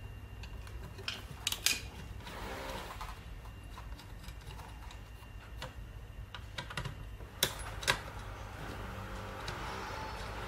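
Scattered light clicks and taps of a screwdriver and metal fittings against the plastic drum of a 989 multi-purpose hand-pushed seed planter as a screw on its side is loosened, with a few sharper clicks standing out, two of them close together past the middle, over a steady low hum.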